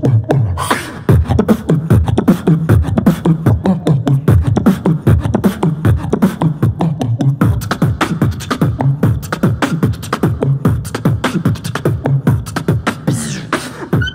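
Beatboxing into a handheld microphone: a fast run of mouth-made kick, snare and hi-hat sounds over a low vocal bass line that steps between notes, with a sweeping noise effect about a second in and again near the end.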